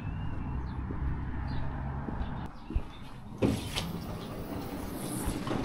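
Van engine and road rumble heard from inside the cab. The rumble drops away about three seconds in and is followed by a few knocks.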